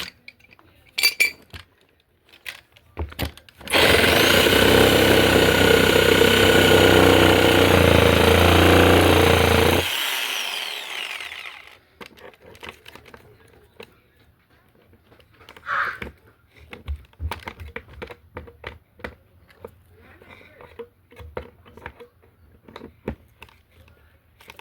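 Electric power saw running and cutting wood for about six seconds, then the motor winding down with a falling pitch. Scattered light knocks and taps follow.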